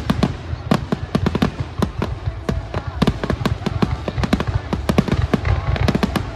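Aerial fireworks going off in a rapid, irregular run of sharp bangs and crackles, several a second, over a low rumble, with a faint whistle near the end.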